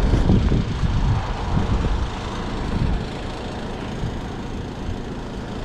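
Wind buffeting the microphone: an uneven low rumble with hiss, strongest in the first second or so.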